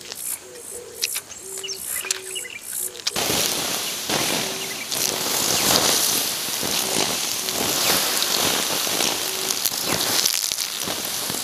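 Water poured onto the hot embers of a small open fire, hissing and spattering loudly as it turns to steam; this starts suddenly about three seconds in. Before that there are only quiet outdoor sounds with short repeated calls.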